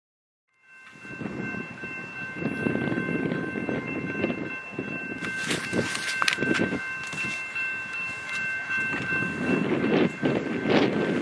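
Diesel freight locomotive's air horn sounding one long chord over the rumble and wheel clatter of a passing train. It starts suddenly under a second in, and the horn fades near the end while the wheel noise goes on.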